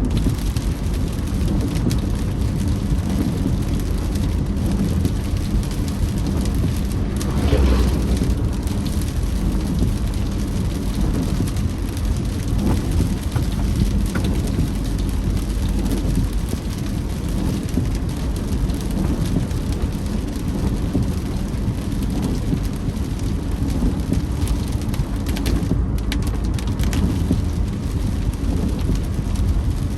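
Rain on a moving car, with steady road and tyre noise underneath. There is a brief louder swell about eight seconds in.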